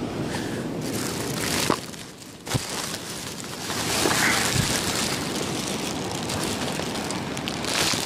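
Surf washing on the beach, with wind on the microphone. The sound dips briefly and swells again, and a few short knocks come through.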